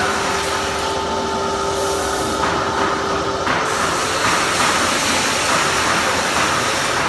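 Panda bouncing jump amusement ride running: a steady mechanical hiss and rattle, with faint held tones in the first half.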